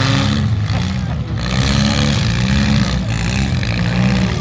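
Demolition derby cars' engines revving up and down in quick surges as the cars drive and push against each other.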